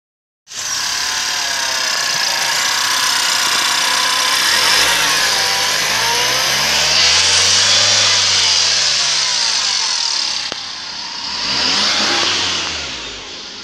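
2018 LDV G10's 2.0-litre four-cylinder engine running in its engine bay. It revs up and back down about halfway through, and once more near the end. This is an engine test that the wreckers passed as good.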